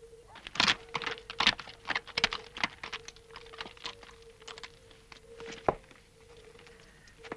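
Horse's hooves clattering on stony ground: a run of irregular sharp clicks and knocks, thickest in the first couple of seconds and thinning out, with one loud knock near the end.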